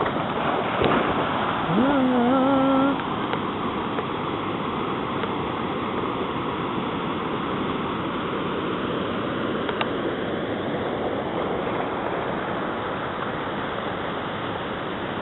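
Small waterfall and creek water rushing steadily over rock ledges. About two seconds in, a short call rises in pitch and then holds for about a second, louder than the water.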